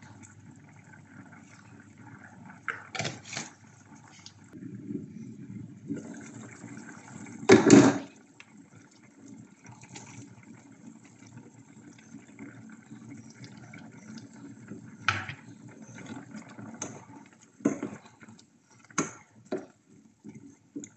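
Chicken feet simmering in cola adobo sauce in a pot, the liquid bubbling steadily, with short knocks and clatters of a spatula against the pot now and then; the loudest clatter comes about eight seconds in.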